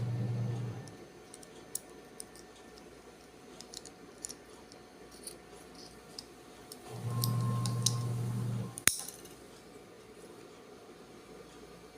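Small plastic switch parts clicking and tapping as the illuminated wall switch is put back together, with one sharp snap about nine seconds in. A steady low hum sounds twice, at the start and again for about two seconds near the middle.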